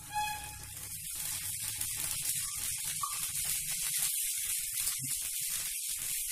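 Dosa batter sizzling on a hot griddle as ghee is poured over it: a steady high hiss that swells slightly about a second in.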